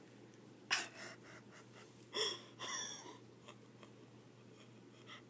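A person's sharp, breathy gasps: one just under a second in, then two close together a little after two seconds, followed by a few faint small sounds.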